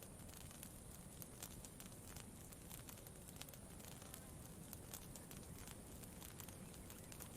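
Campfire crackling softly, with many small irregular pops and snaps over a low steady hiss.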